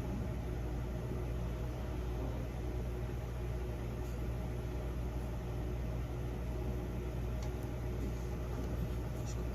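Steady low machine hum with a faint hiss over it, and a few faint short ticks.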